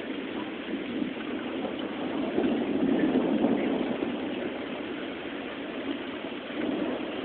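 Steady rain with distant thunder rumbling: a long low roll swells about two seconds in and fades slowly, and a smaller rumble comes near the end.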